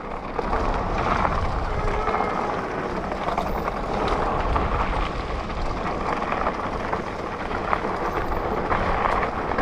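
Mountain bike rolling down a dirt trail: a steady rumble of tyres on the ground and wind on the microphone.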